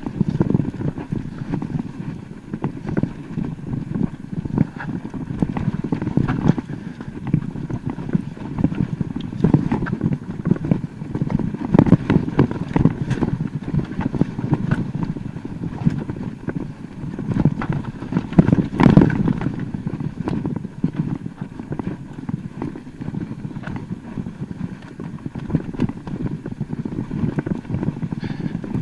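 Mountain bike descending a rough trail: a steady run of irregular knocks and rattles from tyres hitting rocks and the bike's frame and parts shaking, with a few harder hits along the way.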